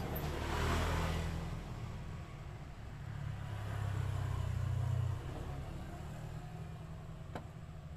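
Low background rumble that swells twice, with a single sharp click near the end.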